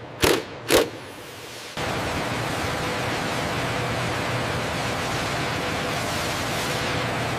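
Two short bursts of a handheld power wrench tightening a bolt on a fuselage ring. From about two seconds in, a steady hiss and low hum of factory ambience takes over.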